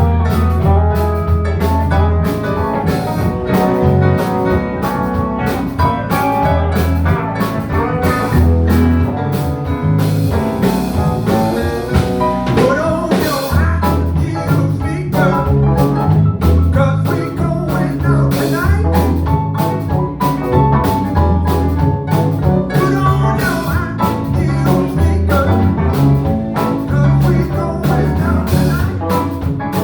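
Live band playing a blues number, with a steady drum beat and bass line.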